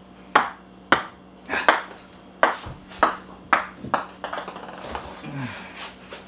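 Ping pong ball bouncing on a hard surface: about seven sharp light clicks, the bounces coming quicker toward the end, then a few fainter ticks.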